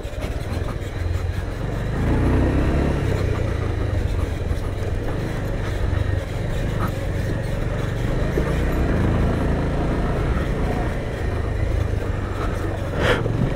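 Bajaj Pulsar motorcycle engine running under way, carrying a rider and pillion, with a steady low rumble that grows a little louder about two seconds in.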